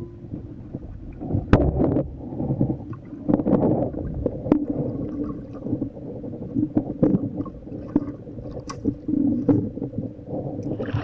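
Underwater sound from a spearfisher's camera: muffled gurgling and rushing water with scattered sharp clicks and knocks, three of them standing out.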